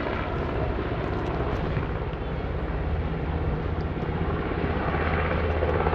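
Helicopter flying low overhead, about 150 to 200 feet up: the steady fast beat of the rotor blades over the engine noise, growing a little louder near the end.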